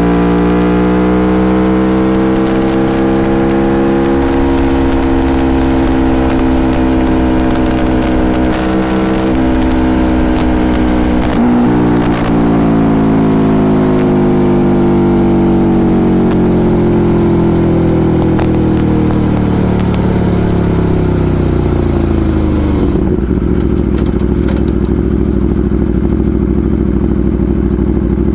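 Aprilia Tuono Factory motorcycle engine on the move: the revs climb for a few seconds, hold steady, change sharply around a gear shift near the middle, then fall away steadily as the bike slows, settling into a steady low-rev running for the last few seconds.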